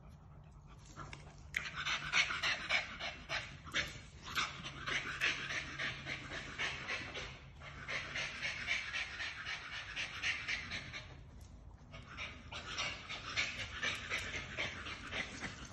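Dog panting in quick, rapid breaths, in three long runs with short pauses about seven and a half and eleven and a half seconds in.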